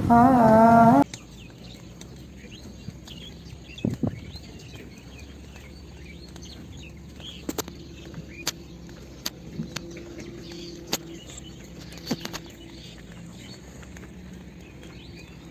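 A sung song cuts off about a second in, leaving open-air rural ambience with many small birds chirping and a scattering of sharp clicks.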